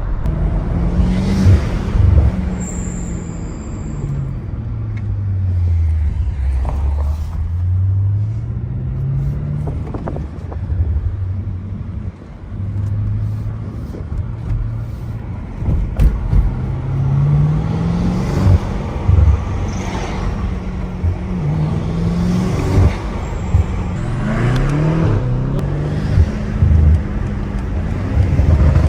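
BMW M8 Competition's 4.4-litre twin-turbo V8 under way: the engine note falls as the car slows and rises again, then several times climbs and drops back sharply as it shifts up through the gears, with scattered short sharp clicks.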